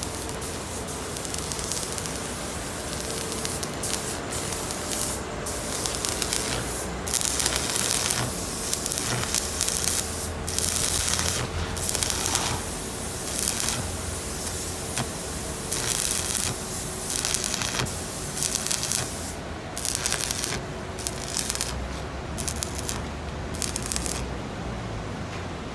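Electric arc welding of a steel floor plate onto a truck's cargo bed: a hissing, crackling arc in bursts of a few seconds each, stopping and restarting as bead after bead is laid.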